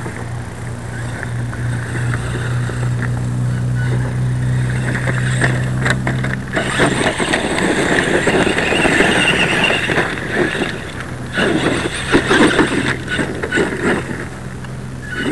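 Traxxas E-Maxx electric RC monster truck driving over loose gravel and rocks: its motors whine while its tyres crunch and scrabble on the stones. About six seconds in this becomes louder and rougher. Before that, a steady low hum underlies it.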